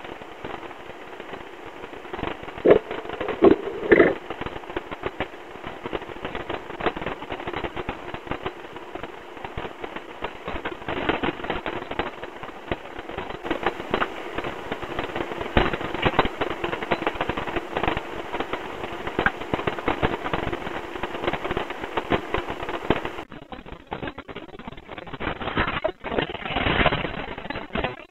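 Jeep Wrangler climbing a rutted dirt hill trail: a steady engine drone under dense crackling and popping, with a few louder bursts about three to four seconds in.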